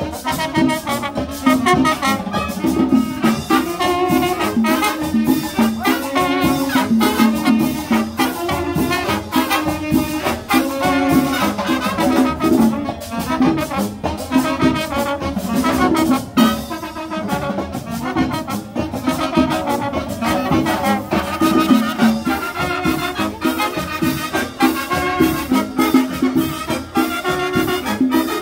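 Marching band brass section, trumpets and trombones, playing a Latin salsa-style tune.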